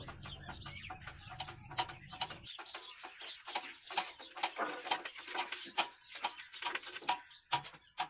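Sharp metallic clicking, irregular and several times a second, from hand work on the fuel pump of a stopped horizontal single-cylinder oil engine. Under it a low hum cuts off about two and a half seconds in.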